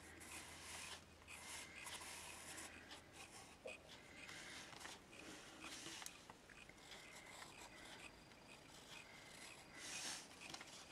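Faint scratching of a pencil tracing around the edge of a paper cut-out onto card, in short, irregular strokes.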